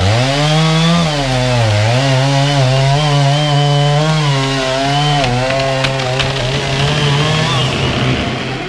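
Two-stroke Stihl chainsaw cutting into a eucalyptus trunk. The engine's pitch sags twice early on as the chain bites under load, then holds at high revs. A few sharp clicks come a little past halfway, and the saw backs off near the end.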